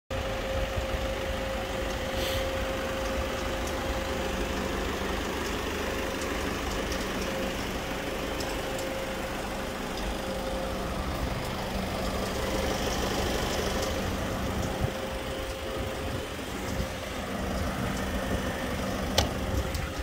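Citroën Jumper van's diesel engine idling steadily, a constant hum. A single sharp click comes near the end.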